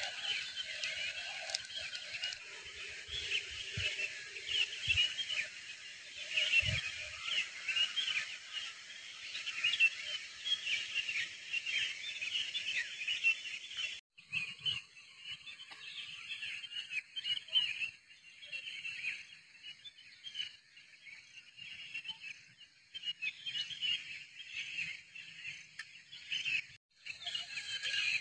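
Dense evening chorus of many small animals calling at once: rapid, overlapping short high chirps. A few soft low thuds come in the first seven seconds, and the chorus drops out for a moment twice, about halfway and near the end.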